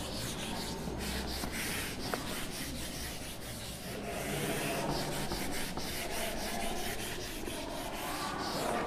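A whiteboard duster being rubbed back and forth across a whiteboard, erasing marker writing in a run of quick, scraping strokes.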